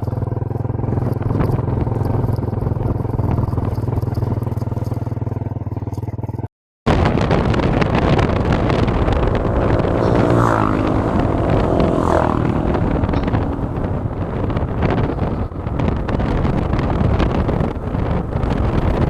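Motorcycle engine running steadily while riding, then, after a cut about six seconds in, loud road and wind rush with a few brief pitched tones around the middle.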